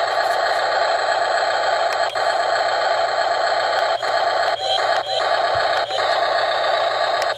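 Hammer breaker on a Double E 1:16 RC excavator chattering rapidly against ice, a dense, steady rattle that stops briefly several times as the bit works the ice.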